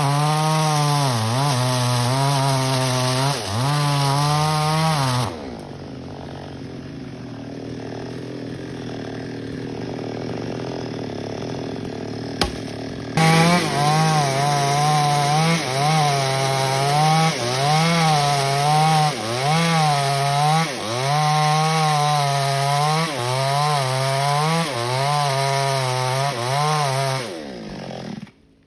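Small chainsaw cutting teak branches, its engine pitch dipping again and again as the chain bites into the wood. About five seconds in it drops much quieter for several seconds, a sharp click sounds, then it runs up and cuts again before cutting off suddenly near the end.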